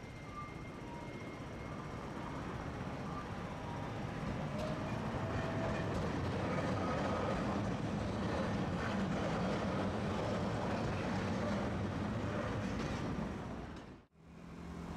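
A Tosaden streetcar passing close by on street track, its running noise over a steady low hum building for several seconds and holding loud. The sound cuts off sharply near the end.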